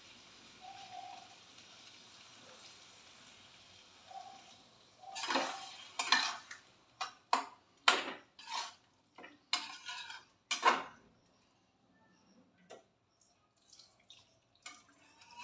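Metal ladle stirring in a steel kadhai, knocking and scraping against the pan. After a quiet start it makes a run of sharp metallic knocks from about five seconds in, lasting about six seconds, then a few faint clinks.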